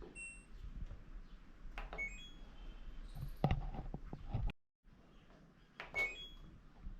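Short electronic beeps from an LG washing machine's control panel, heard near the start, about two seconds in and again about six seconds in, among scattered clicks. A louder thump comes about three and a half seconds in.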